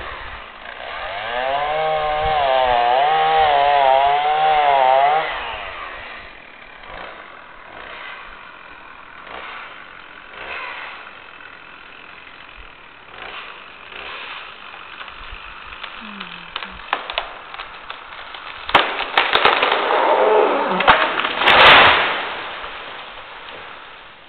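Two-stroke chainsaw cutting, its engine pitch wavering under load for about five seconds before it drops away. After a quieter stretch with a few sharp cracks, the felled tree crashes down through branches near the end.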